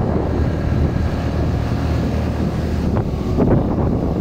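Wind noise buffeting the microphone on a moving motorcycle, over the engine's steady low hum.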